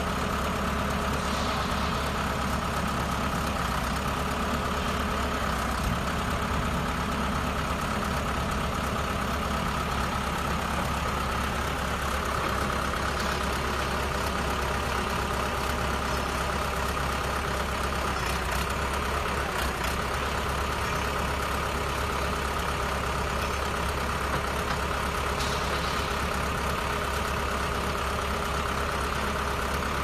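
Small farm tractor's engine running steadily, its pace unchanged throughout.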